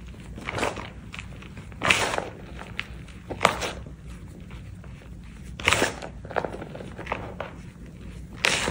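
Lumps of reformed gym chalk crushed and crumbled in the hands, the pieces and powder falling back into the heap: a run of crunches and crackles, with louder crunches every second or two.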